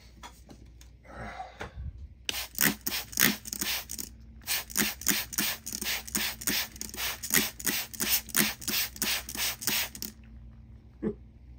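Hand spray bottle squirting water onto a dirty rock to wash it: quick hissing squirts, about three a second. They come in a short run and then a longer one, and stop about ten seconds in.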